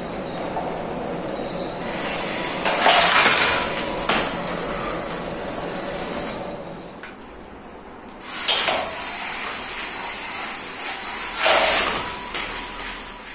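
A 1 kg sumo robot's drive motors and wheels in three short noisy bursts as it dashes across the ring, with a knock or two as the robot is set down and picked up.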